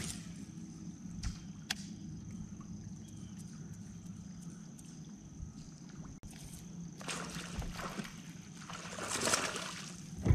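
Steady low hum of a bow-mounted electric trolling motor, with a couple of light clicks in the first two seconds and water sloshing against the hull swelling twice near the end.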